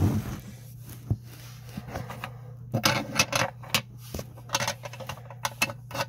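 Hands handling LEGO bricks close to the phone's microphone: a thump at the start, then from about three seconds in a quick run of plastic clicks and knocks, over a steady low hum.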